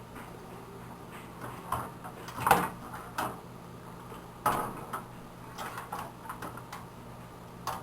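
Irregular metallic clinks and knocks of a desktop computer's case and parts being handled during disassembly, the loudest knock about two and a half seconds in and another about four and a half seconds in, over a faint steady hum.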